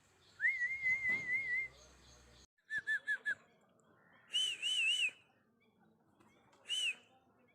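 A series of high whistled notes. It opens with a warbling whistle of about a second, then four quick short chirps, then three arched notes in a row and a single one near the end.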